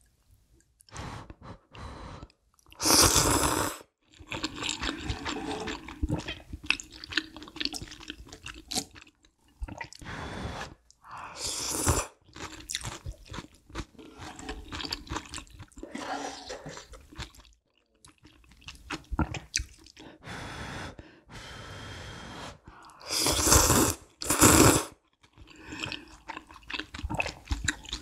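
Close-miked eating of spicy ramyun noodles: soft wet chewing throughout, broken by loud slurps about three seconds in, about twelve seconds in, and twice in quick succession near the end.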